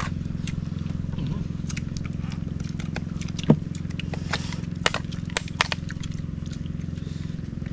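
Eating at a shared tray: sharp clicks and cracks of shells and small utensils, about a dozen scattered ones with the loudest about three and a half seconds in, over a steady low hum.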